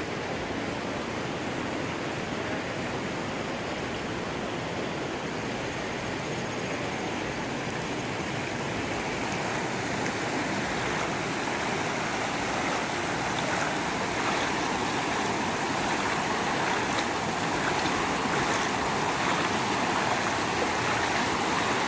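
Rushing water of a muddy river in flood, a steady noise that grows a little louder in the second half.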